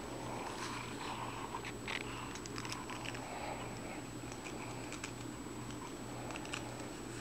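A cat rubbing his face along a vented round hairbrush, with faint scratchy clicks from the bristles dragging through fur and his claws catching in the brush's holed barrel, over a steady low hum.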